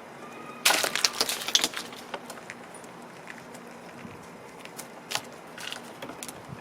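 A squirrel in a pile of birdseed and nuts: a sudden loud burst of crunching and crackling about half a second in, lasting about a second, then scattered single crunches and clicks.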